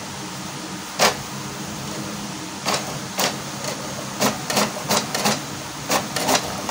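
HP DeskJet 2135 inkjet printer printing its self-test page, its blinking ink-light error cleared: a steady low hum, a sharp clack about a second in, then repeated clacks of the print mechanism at uneven spacing, a few a second, from about two and a half seconds in.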